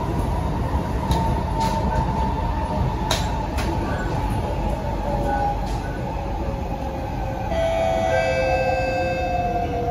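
Cabin interior of an SMRT C151C electric metro train running on the line: a steady rumble of wheels on rail with the traction motor's whine and a few light clicks. From about three-quarters of the way in, a cluster of higher whining tones sets in and slowly falls in pitch, as the motors slow the train.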